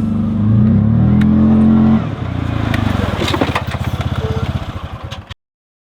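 A motor vehicle's engine revving up, its pitch rising over the first two seconds, then running with a fast, even pulse until the sound cuts off abruptly about five seconds in.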